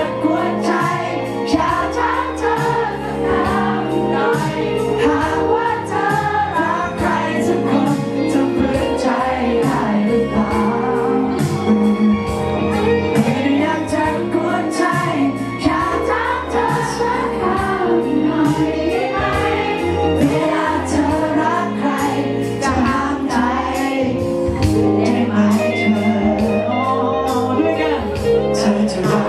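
A male singer singing a Thai pop song live into a microphone, with accompanying music played over the venue's sound system.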